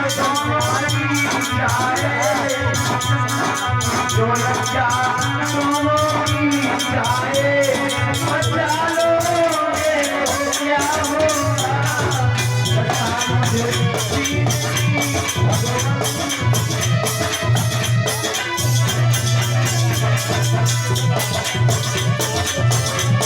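Devotional bhajan music: a wavering melody over a fast, steady shaker-and-drum rhythm with a low pulsing bass.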